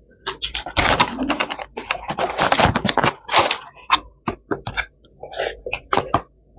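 Close-up eating sounds: crisp crackling and clicking of chewing and of fingers picking food out of clear plastic takeaway containers, dense for the first three seconds or so, then scattered single clicks.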